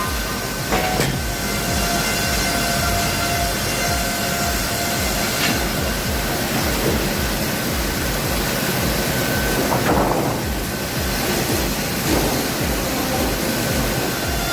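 Heavy sawmill machinery running, a steady loud rumble under a held whine, with a couple of sharp clanks near the start and a surge about ten seconds in.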